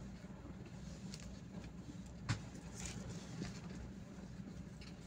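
Bus engine running with a steady low rumble, heard from the driver's cab, with one sharp knock a little over two seconds in.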